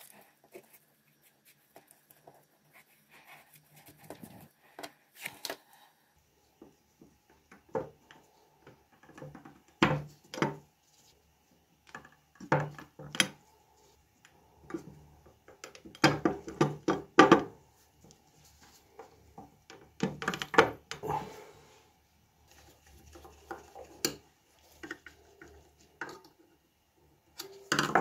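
Intermittent taps, clicks and knocks of small parts being handled on a workbench: rubber bumpers being trimmed and fitted to a painted metal telephone base plate. The knocks come in irregular clusters, loudest about halfway through.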